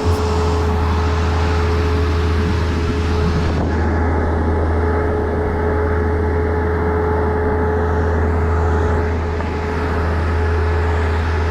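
An engine running steadily, with a low drone and a constant whine above it.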